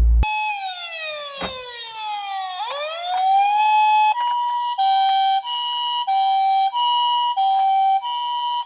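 Emergency-vehicle siren sound: a wailing tone falls slowly in pitch, then sweeps back up. About four seconds in it switches to an alternating two-tone hi-lo pattern, each tone held a little over half a second, like a Japanese ambulance siren. A single click is heard early on.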